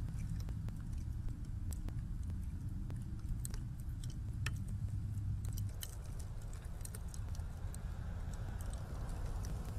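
Snowstorm street ambience: a steady low rumble of wind and slow traffic on snowy roads, with many scattered small clicks and ticks.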